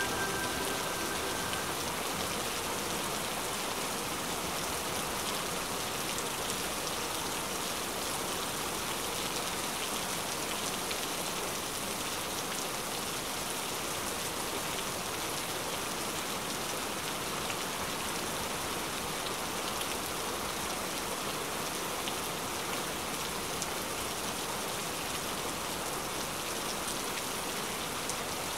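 Steady, even rain-like hiss of falling rain with no rhythm or pitch, likely a rain ambience track; the last notes of a music cue fade out in the first second or two.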